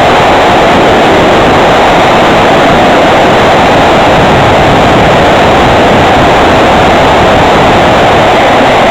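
Loud, steady rush of wind over a wing-mounted camera on a flying radio-controlled plane, with no clear motor tone.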